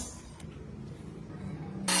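Faint low hum, then near the end a power tool working wood starts up suddenly and loudly, with a steady high whine.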